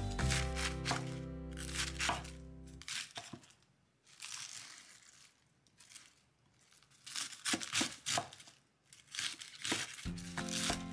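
Kitchen knife cutting through a wedge of spring cabbage on a wooden cutting board: a series of crisp crunching cuts, about one a second. Background music plays for the first few seconds and comes back near the end.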